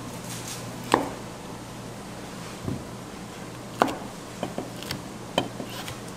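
Chef's knife slicing through blood sausage (sundae) and knocking down onto a plastic cutting board. There is one sharp knock about a second in, another near the middle, then a quicker run of lighter cuts, all over a steady low kitchen hum.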